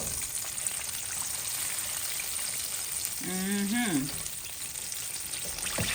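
Chicken wings frying in hot oil: a steady crackling sizzle. A short voiced sound, like a murmured exclamation, rises and falls about halfway through.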